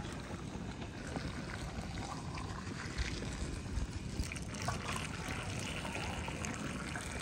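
Water poured in a thin stream into glass jars packed with cornelian cherries, a steady trickle and splash as each jar fills for compote.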